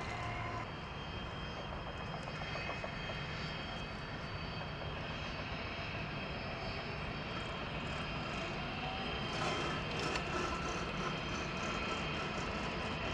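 Twin-engine business jet taxiing, its rear-mounted jet engines running with a steady whine over a rushing noise, a little louder for a moment about ten seconds in.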